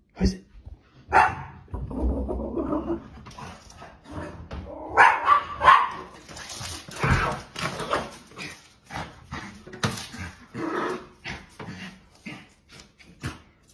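Small dog barking over and over in short, sharp barks and yips.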